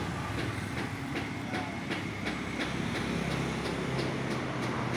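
Steady low rumble of outdoor mechanical noise, with a run of regular sharp clicks, about two to three a second.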